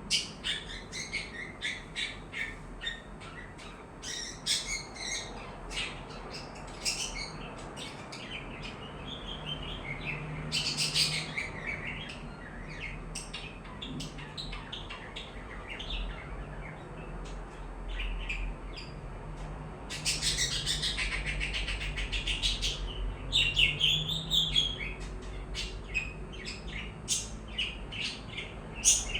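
Pet budgerigars and lovebirds chirping, a steady run of many short high calls. Twice, at about 11 and 21 seconds in, the calls thicken into a rapid chattering burst.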